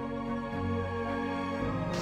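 Calm background music of slow, held notes.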